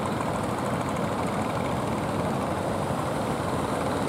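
Steady drone of the inboard engines of a line of wooden fishing boats motoring out through a choppy river mouth, under an even wash of waves and water.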